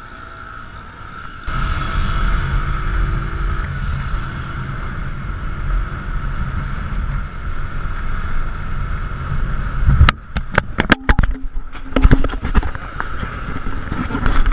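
Bajaj Boxer CT 100 motorcycle underway, its engine and the wind on the camera microphone jumping suddenly louder about a second and a half in as it pulls away. From about ten seconds in, a run of sharp knocks and rattles as the camera is jostled loose on its mount and nearly falls.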